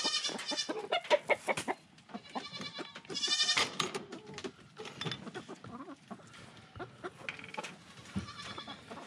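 Chickens clucking and calling in a chicken run, with a louder pitched call about three seconds in. There are sharp clicks and rattles in the first two seconds, from the run door's metal latch and hardware being worked.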